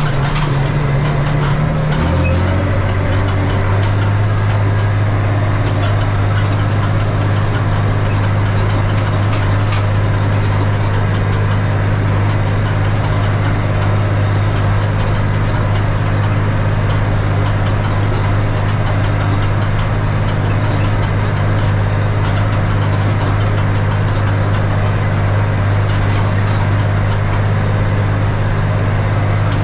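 Valmet 118 tractor's diesel engine running steadily on a straight exhaust pipe while pulling a wheat seeder. Its note drops a little about two seconds in, then holds steady.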